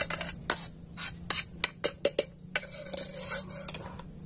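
Quick, irregular knocks and scrapes of a small metal camping pot being tapped and worked to shake cooked rice out of it, stopping near the end. A steady high insect drone runs underneath.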